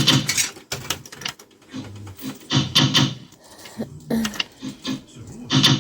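Irregular clattering and knocking from a fruit machine being played, over the busy background noise of an amusement arcade.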